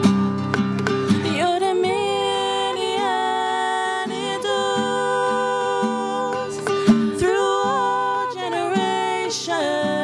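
A young woman singing a slow song with held, wavering notes, accompanied by a plucked string instrument. The voice comes in about a second and a half in, after a few plucked notes.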